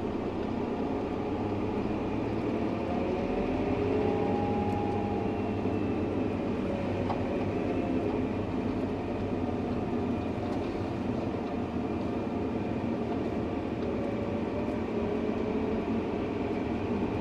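Tractor running steadily on the move, a constant engine and drivetrain drone with faint tones that glide slowly up and down.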